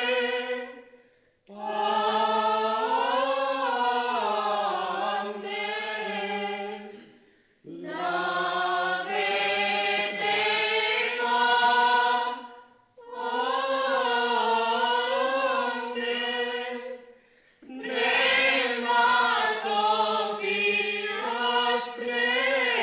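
Choir singing Byzantine liturgical chant for the Theophany in the local Arbëreshë tradition of Piana degli Albanesi. The voices sing long, slowly moving phrases, with brief pauses between them about every five or six seconds.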